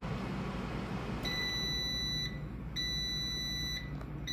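GoWise USA 3.5-quart air fryer sounding its end-of-cooking alarm as the timer runs out: two long high beeps of about a second each, half a second apart, and a third starting at the end. A steady low hum runs underneath.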